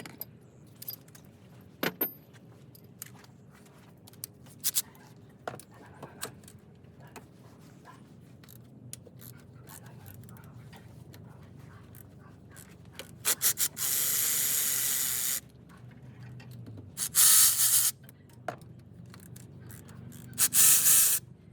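Scattered clicks, knocks and scraping of hand tools on engine parts. In the last third come three loud hissing blasts, each about a second long.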